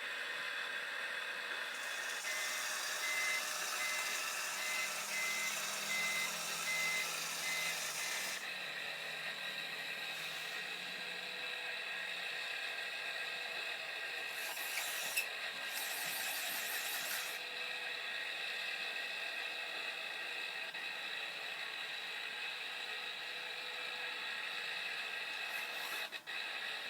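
Bruder toy light and sound module playing its electronic truck engine sound through a small speaker. A reversing beeper beeps steadily from about two to eight seconds in, and short hissing bursts come near the middle.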